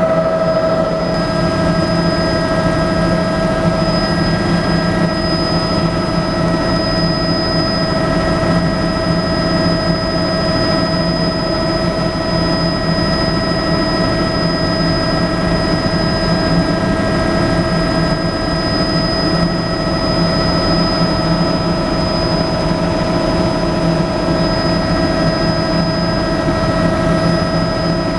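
Bell 206B-III JetRanger III helicopter in level flight, heard from inside the cabin: a steady, loud drone of rotors and turbine with a constant high whine, unchanging throughout.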